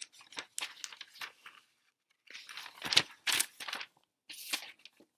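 Paper rustling and crinkling as workbook pages are handled and turned. It comes in three irregular bursts of crackle, the loudest about three seconds in.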